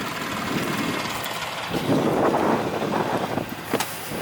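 Engine running steadily, louder in the middle, with a couple of sharp knocks near the end.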